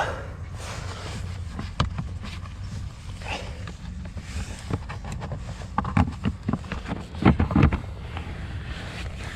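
Clicks and knocks of a plastic dashboard trim panel being handled and fitted back into place, the loudest knocks coming in a cluster about three quarters of the way through, over a steady low hum.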